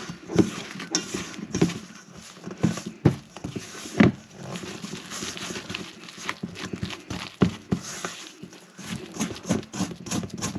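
Stirring a soft, very wet yeast dough by hand in a mixing bowl: irregular clicks and knocks of the utensil against the bowl with soft squishing of the dough, growing busier near the end.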